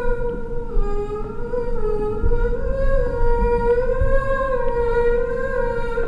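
A woman's voice humming one long unbroken note that wavers and glides slowly up and down, following the line of a mountain skyline as she traces it. A steady low rumble runs underneath.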